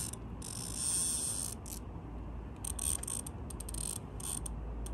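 Fishing reel clicking with a ratchet-like sound as a hooked fish is played in, with a short hiss early and a run of quick clicks in the second half.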